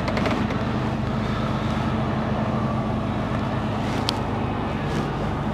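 Lorry's diesel engine running steadily at low speed, heard from inside the cab as an even low hum with road noise.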